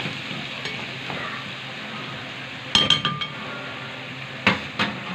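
Garlic sizzling as it fries in oil in a pot, with a metal spoon clinking against the pot in a short cluster about three seconds in and twice more near the end.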